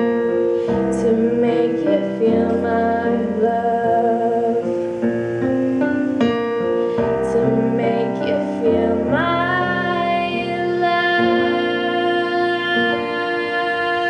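Live female vocalist singing a slow ballad over instrumental accompaniment; about nine seconds in she slides up into a long held note.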